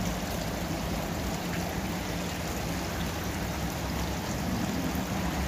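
Several small garden water-feature fountains running, water steadily trickling and splashing into their basins.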